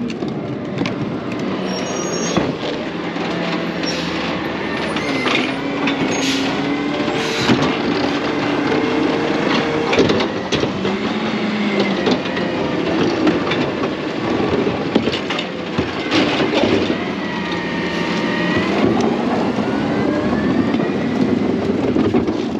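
Garbage truck working close by, its diesel engine running and revving, with whines that rise and fall in pitch throughout.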